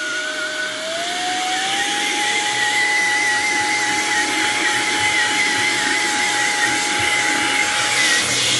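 Cordless electric air duster's fan running, a steady whine over a rush of blown air. About a second in the whine rises in pitch and gets louder as the fan speeds up, then holds steady.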